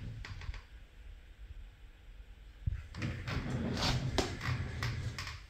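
Handling noise: rustling and light clicks and scrapes, with a cluster of them from about three to five seconds in, over a low rumble.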